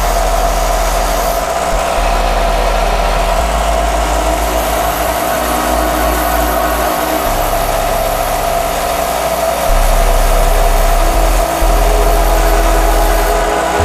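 Bench grinder running, its grinding wheel grinding a small hand-held metal part in a steady, unbroken grind.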